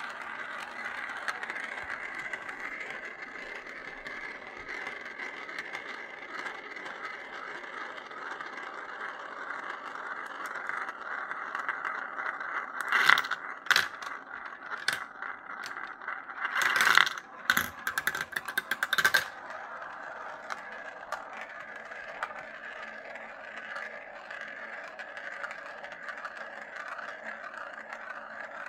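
Marbles rolling round and round the plastic funnel bowls of a marble run, a steady rolling whir, with bursts of sharp clacks as marbles drop and knock through the plastic track pieces, loudest in a run of clatter about halfway through.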